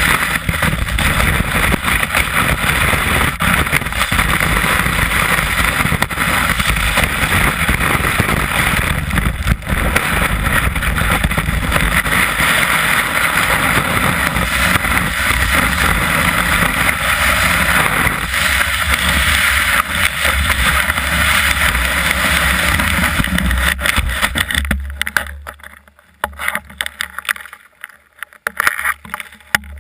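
Snowboard sliding and carving down a snowy slope, heard from the board itself: a loud, steady rushing scrape of the board on snow mixed with wind on the microphone. About 25 seconds in it falls away sharply as the board slows to a stop, leaving a few short scrapes and knocks.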